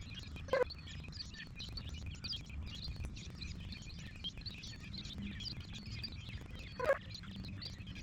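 Many songbirds chirping and singing over a low outdoor rumble. Two brief, louder sounds stand out, one about half a second in and one near the end.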